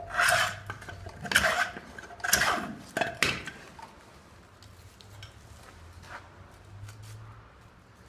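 Plane shaving a pine log: four quick rasping strokes about a second apart. After them the sound drops to faint light scrapes and clicks.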